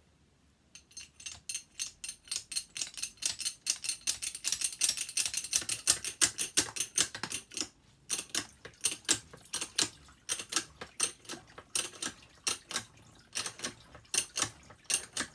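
Jack on a homemade briquette press being wound down with an old drill, giving a rapid run of sharp mechanical clicks, about five a second, with two short breaks.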